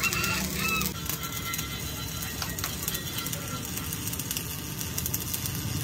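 Stick (arc) welding on a steel truck front axle beam: the arc crackles and spits steadily as the bead is laid. Music plays along with it.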